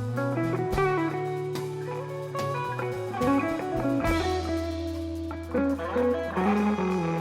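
Live rock band music: electric guitar lines over held bass notes and a drum kit.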